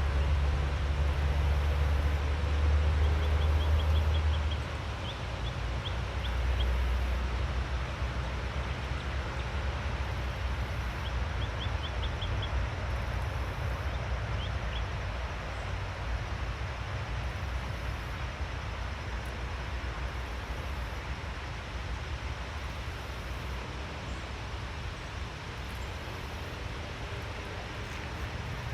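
Outdoor forest ambience: a steady rushing noise under a low rumble that is louder for the first few seconds, with several short runs of faint, quick, high bird chirps in the first half.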